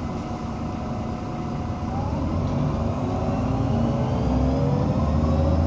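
Irisbus Citelis 18 articulated bus's Iveco Cursor 8 diesel engine and Voith automatic gearbox pulling away, growing louder from about two seconds in with a rising whine as the bus gathers speed.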